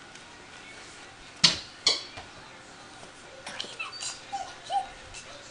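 Mini goldendoodle puppy giving two sharp yaps about half a second apart, then a few softer whimpers and yips.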